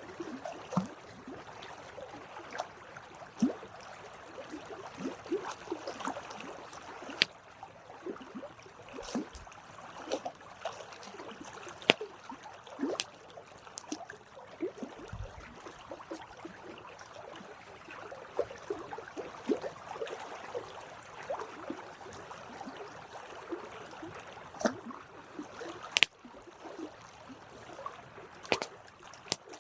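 Campfire burning: wood crackling with irregular sharp pops over a soft steady hiss of the flames.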